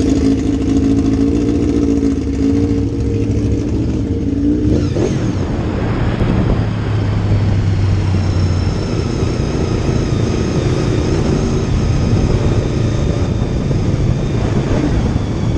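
Motorcycle engine idling steadily, then pulling away about five seconds in and running under way, with wind and road rush.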